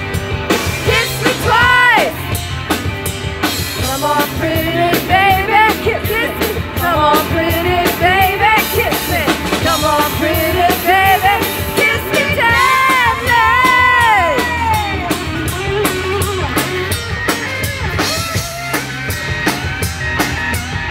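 Live rock band playing outdoors: a female lead vocal sung into a microphone over electric guitar and a drum kit, through a small PA.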